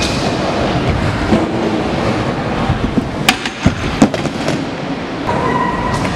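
Scooter wheels rolling on the skatepark floor, then a clatter of sharp hits about three to four seconds in as the rider bails on the handrail and the scooter crashes to the ground.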